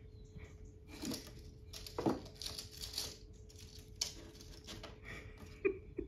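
Small dog rummaging in a wooden tub of kindling: dry sticks rustling, scraping and clattering irregularly, with a few sharp knocks, the loudest about two seconds in and two more near the end.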